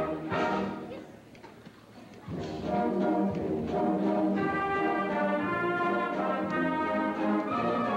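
Middle school concert band playing a piece. About a second in, the band cuts off into a short rest, then comes back in strongly a second or so later and plays on.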